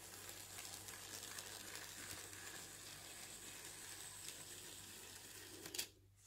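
Faint steady crackling hiss over a low hum from an OO gauge model train running past along its track. It cuts off near the end.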